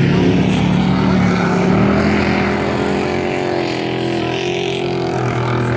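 Dirt-track race truck engines running hard as the trucks lap the oval, a steady loud engine drone whose pitch shifts slightly as they go around.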